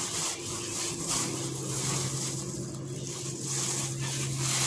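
Thin plastic shopping bag rustling and crinkling as heads of lettuce are pushed into it, over a steady low hum that sets in about a second in.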